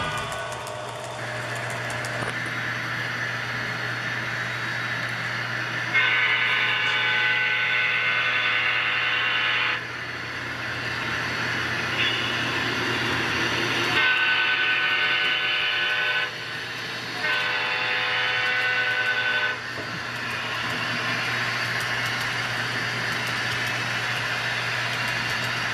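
Model diesel locomotive's sound-decoder horn, a multi-tone horn sounded in several long blasts between about six and twenty seconds in, over a steady low hum.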